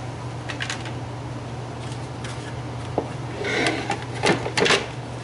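Hard plastic hockey helmet shells being picked up and handled: a click about three seconds in, then scraping and a few sharp knocks of plastic against plastic, over a steady low hum.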